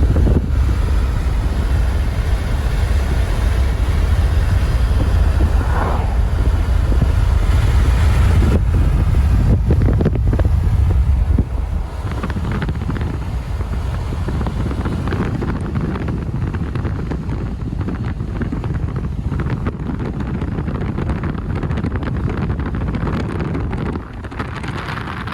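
Strong wind buffeting the microphone over the noise of a vehicle on the move. A heavy low rumble eases somewhat about eleven seconds in.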